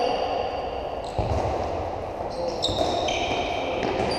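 Players' trainers squeaking on a sports-hall floor in several short, high-pitched chirps, with the dull thud of a football being struck about a second in, echoing in a large hall.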